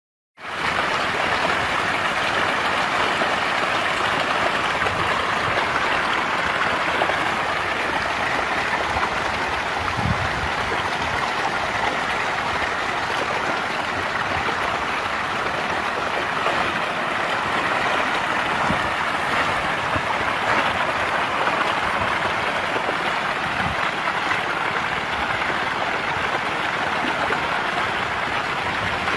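Steady churning splash of a dense school of fish thrashing at the water's surface as they feed.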